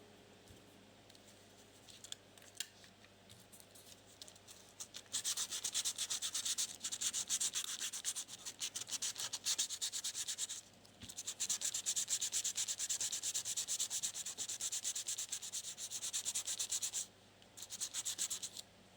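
Rapid back-and-forth rubbing strokes, several a second, on the restored tape measure. They start about five seconds in, pause briefly near the middle and stop near the end, with one short last run.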